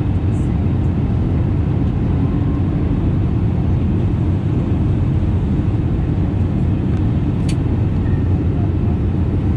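Steady cabin noise of an Airbus A320neo in flight: engine and airflow rumble, heavy in the low end and even in level. One small sharp click sounds near the end.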